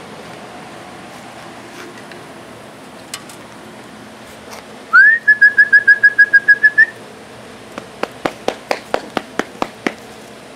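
A loud whistled trill: one rising note, then a quick run of about a dozen short notes at the same pitch for about two seconds. It is followed by a string of about ten sharp taps.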